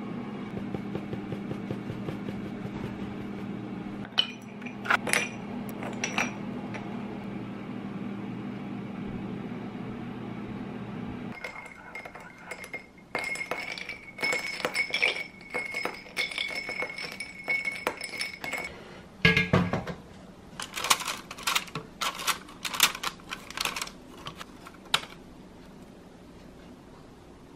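A steady low hum, which stops suddenly about eleven seconds in. A spoon then stirs ice cubes in a drinking glass, clinking with a light ringing. Near the end come a thump and a run of sharp clicks and knocks as wooden chopsticks lift pastries out of an air fryer basket.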